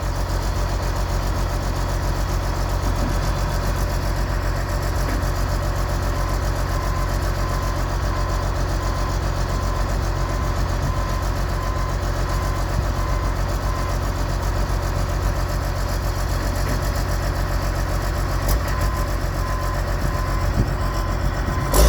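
John Deere 700J LGP crawler dozer's 115 hp John Deere diesel engine running steadily at an even, low speed, close by.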